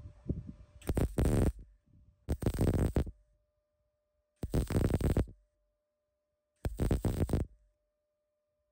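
MIG welder laying four short tack welds on thin sheet steel, each a crackling, buzzing burst of under a second, spaced about two seconds apart.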